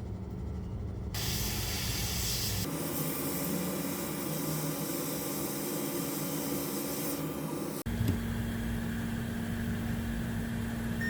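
Hot air rework station blowing a steady hissing air stream, used to heat and remove shorted, water-damaged capacitors from a laptop motherboard. The hiss starts about a second in, and its sound shifts abruptly twice.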